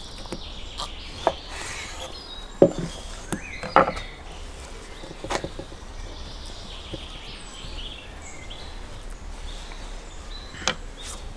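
Scattered knocks of a kitchen knife and lemon wedges being handled on a wooden cutting board, about six in all, the loudest a little under three seconds and about four seconds in. A steady high background hiss runs beneath them.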